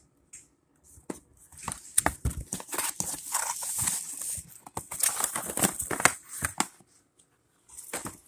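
Bang snaps (snappers) popping in quick, crackling runs of sharp cracks from about a second in, stopping shortly before the end.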